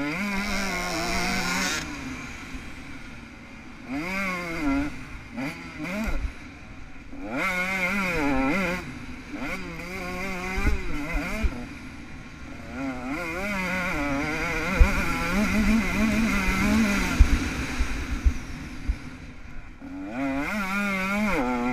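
KTM SX 125 two-stroke motocross engine being ridden hard, its pitch repeatedly rising under throttle and dropping back as the rider shuts off and opens up again every second or two.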